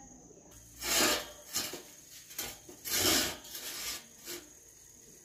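Repeated scraping strokes along a metal tent-frame tube, about seven uneven strokes of differing length, the loudest about a second and three seconds in.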